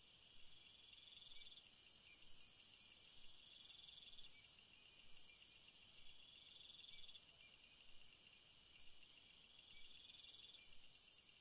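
Faint chorus of night insects, crickets: a high trill that never stops, with shorter chirps repeating over and over beneath it.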